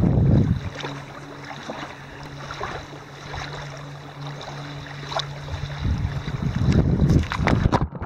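Small waves washing over and around a microphone held at the surface of shallow water: loud, muffled rushes of water at the start and again in the last two seconds, with quieter lapping and a faint steady low hum between.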